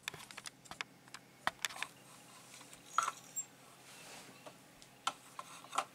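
A handful of light handling clicks and taps at irregular intervals, with a faint hiss around the middle.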